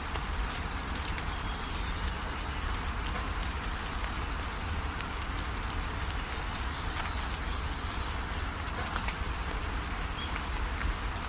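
Steady rain falling, with scattered drop ticks, and small birds giving short high chirps again and again.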